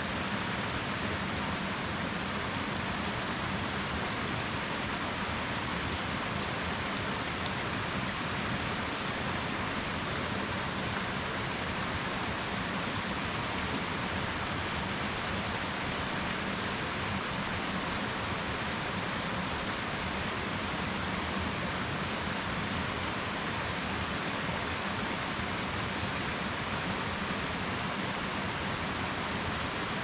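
Waterfall: falling water making a steady, even rush.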